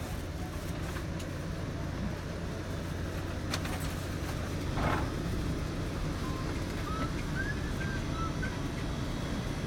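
Steady low rumble of a VIA Rail passenger train, with a sharp knock about three and a half seconds in and a brief louder rush about five seconds in. A few short high chirps come near the end.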